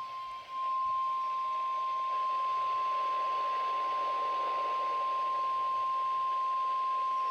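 NOAA Weather Radio's 1050 Hz warning alarm tone: one steady, unbroken tone over a faint radio hiss, the alert signal that comes before a spoken weather warning.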